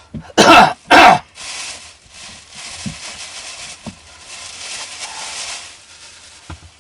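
A man coughs twice in quick succession, loud and harsh, followed by a soft, steady hiss for several seconds.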